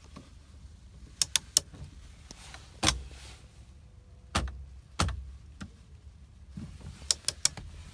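Sharp metal clicks and knocks from a torque wrench being set and fitted onto the steering-wheel hub nut: a quick triple click about a second in, single knocks around three, four and five seconds, and another quick triple click near the end.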